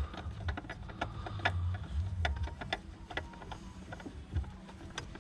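Irregular light clicks and ticks of a new spin-on oil filter being threaded onto the diesel engine's filter mount by hand, over a low hum that comes and goes.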